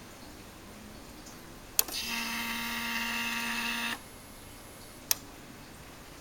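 A click, then an electric pump whining steadily for about two seconds before cutting off suddenly, and a second click a little over a second later, typical of a car's electric fuel pump priming when the ignition is switched on. The whine is the abnormal noise that has persisted even after the pump, regulator and hoses were replaced.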